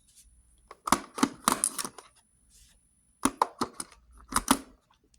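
D-cell batteries being pressed into the plastic battery compartment of a Numark PT01 portable turntable, making two bursts of sharp clacks and knocks, one about a second in and another past the halfway point.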